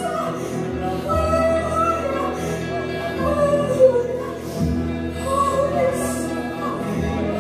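Women's voices singing a worship song together into microphones, held sung notes gliding between pitches, backed by a live band of guitars and drums.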